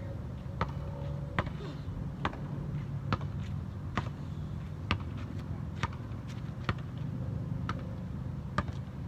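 Basketball being dribbled on an outdoor asphalt court, about one bounce a second, over a steady low hum.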